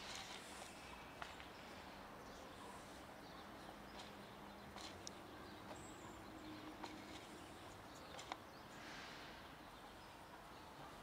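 Near silence: quiet outdoor ambience with a few faint, scattered clicks.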